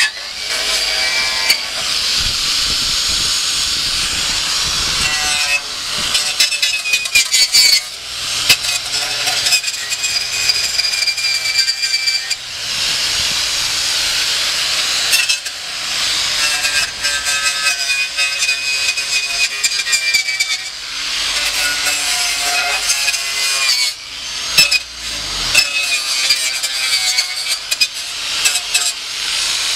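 A hand tool rasping and scraping on a workpiece in long stretches, each a few seconds, broken by short pauses, with a high ringing edge to the noise.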